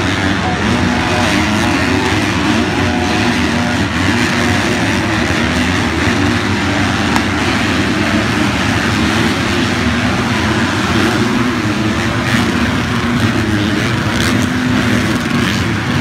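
Several motocross racing motorcycles' engines running hard together, a loud, continuous engine noise whose pitch wavers up and down as the bikes accelerate and pass.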